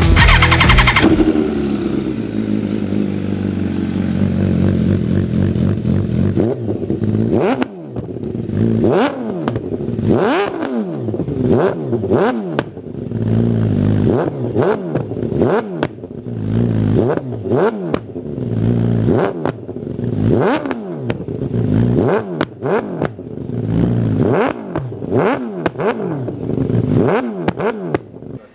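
MV Agusta F4 RR's inline-four engine through a Bodis titanium full-system open exhaust, running on a freshly remapped ECU. It runs steadily for several seconds, then is revved in quick throttle blips about once a second, each rising and falling.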